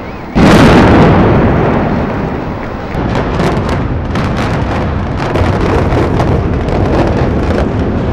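Explosive demolition of a high-rise apartment block: a sudden loud blast about a third of a second in that dies away slowly, then from about three seconds in a rapid string of sharp cracks from the demolition charges over the continuing rumble of the collapse.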